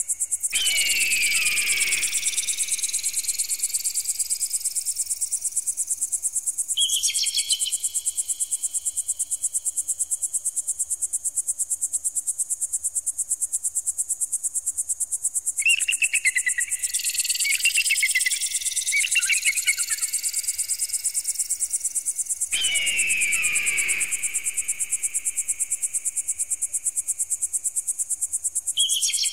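Electronic bird-repeller sound: a fast, high-pitched pulsing buzz throughout. Over it run long, straight rising sweeps beginning about half a second in and again about 17 s in, and downward swoops near the start and about 22 s in. Short warbling chirps come around 7 s, several between about 16 and 20 s, and again just before the end.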